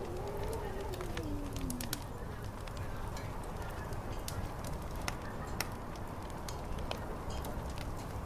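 Fire crackling with frequent sharp pops over a steady low rumble. In the first two seconds a long drawn-out tone rises slightly and then falls away.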